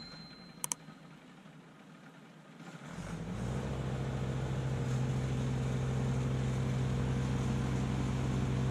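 The three-cylinder diesel engine of a Kubota LX2610 compact tractor runs at a steady drone, fading in about three seconds in as the tractor comes closer. A faint double click comes just before it, near the start.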